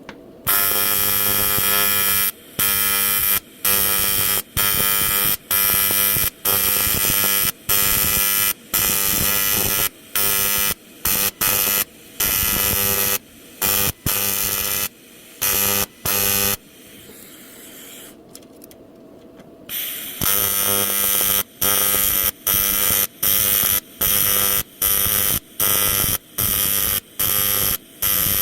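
Welding arc buzzing in short repeated bursts, each lasting about a second with brief breaks between, as a patch plate is welded over a hole in an aluminium fuel tank. The bursts stop for a few seconds about halfway through, then resume.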